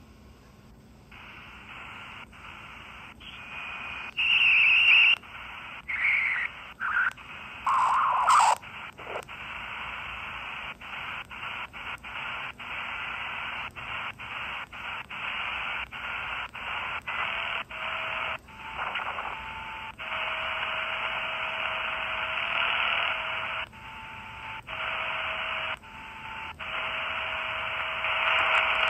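Model 4732 mini radio being tuned across the shortwave bands, giving hiss and static with no clear station. It breaks off in many short gaps, with squealing whistles around four to nine seconds in and steady whistle tones in the second half. This is the poor reception of this radio on those bands.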